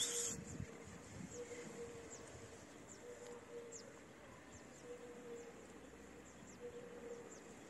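Faint outdoor background with scattered short, high chirps and a faint hum that comes and goes, after a short hiss at the very start.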